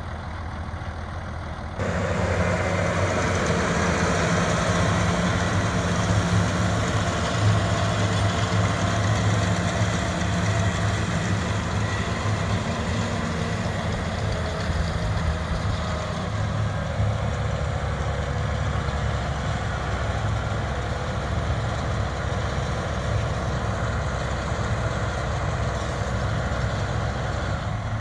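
Farm tractor's diesel engine running steadily while pulling a round baler through the hay. The sound jumps up suddenly about two seconds in.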